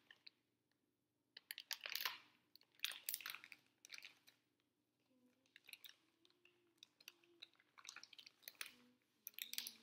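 Crinkling and rustling of a candy packet, handled in short irregular bursts while someone works at opening it.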